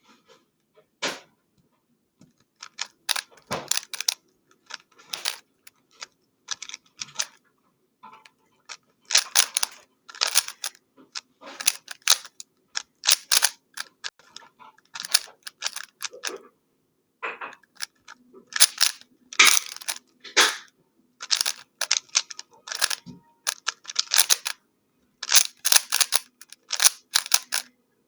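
A plastic 3x3 Rubik's Cube being turned fast in a speedsolve: quick, irregular clicks and clacks of the layers, in bursts broken by short pauses.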